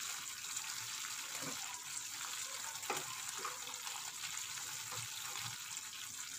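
Thick ginger-and-sugar mixture bubbling and sizzling in a nonstick pan as it is stirred with a wooden spatula: a steady hiss with a few soft knocks of the spatula against the pan. The mixture is frothing up, the sign that the ginger candy is cooked enough to set.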